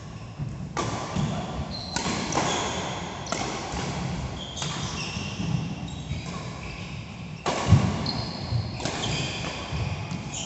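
Badminton rally: rackets strike the shuttlecock about every second and a half, with a pause near the middle, while shoes squeak and thud on the synthetic court mat.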